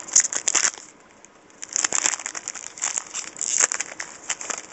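Foil trading-card pack wrapper being torn open and crinkled by hand, in two stretches of irregular crackling with a short pause about a second in.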